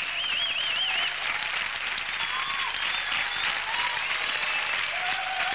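Studio audience applauding. In the first second a high note wavers about four times a second and then fades.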